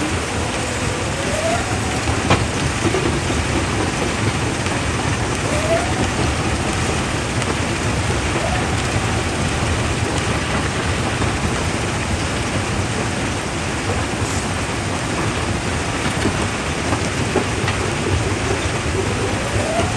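Quarry primary jaw crusher running: a steady, dense crackling clatter of rock being broken, with a few short rising whines from machinery.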